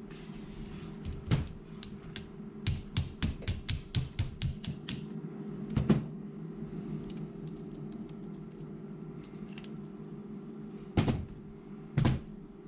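Handling noise: a quick run of light clicks and taps, then two louder knocks near the end, over a steady low hum.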